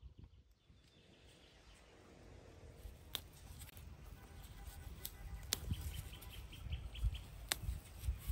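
Leaves and stems of marshmallow plants rustling close by as flowers are picked by hand, with a few sharp snaps or clicks. A bird calls in a short run of quick repeated notes about two-thirds of the way in.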